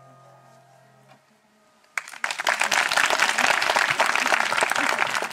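The last chord of a concert cimbalom rings out and fades, then about two seconds in the audience breaks into steady applause.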